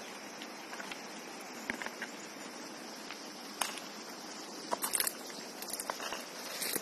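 Steady high-pitched insect chirring, with scattered sharp knocks, a cluster about five seconds in, from a hand tool digging into stony landslide soil.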